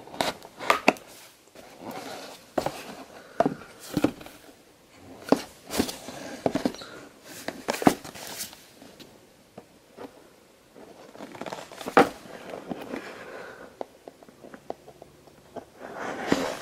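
A cardboard toy box being handled and cut open with scissors: irregular sharp clicks and knocks, with scraping and rustling in between.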